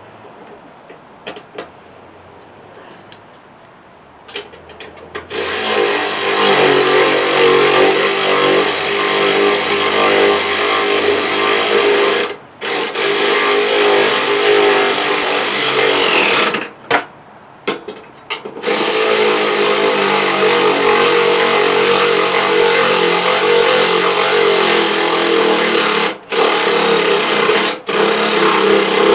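A handheld power drill driving bolts, its motor running under load in several long runs with brief stops between them. It is labouring, 'not happy about it'. A few faint clicks come before it starts, about five seconds in.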